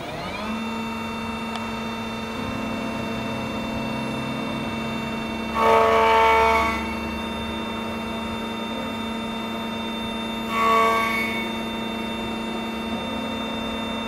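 Electronic key cutting machine's motor spinning up with a rising whine, then running with a steady hum. Twice, about six and eleven seconds in, a louder, higher whine lasts about a second.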